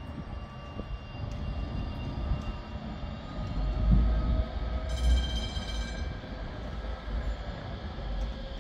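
Vossloh low-floor tram running on street track, with a steady motor whine over the rumble of wheels on rail. About five seconds in there is a brief high ringing sound lasting about a second.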